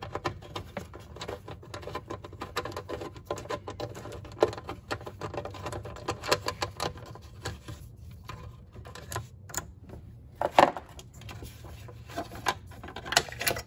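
Ratchet wrench with a 13 mm socket clicking in rapid runs of strokes as it backs off the nut holding a golf cart's negative cable, with metal rattling as the cable is worked loose and a few louder clicks about ten and a half seconds in.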